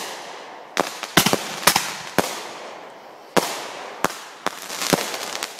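Consumer aerial fireworks going off overhead: about ten sharp bangs at uneven intervals, each trailing away slowly, with a crackling spray near the end.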